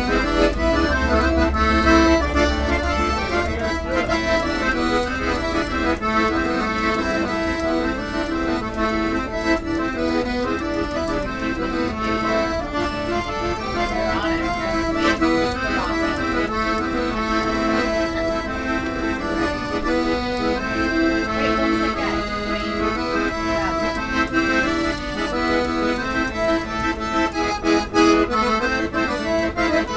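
Piano accordion played solo: a continuous tune over steady held chords.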